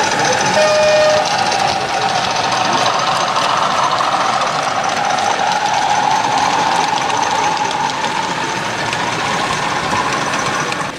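A model diesel locomotive runs past hauling a rake of tank wagons, its running drone rising and then slowly falling in pitch. A short steady tone sounds about half a second in, over a continuous background hubbub.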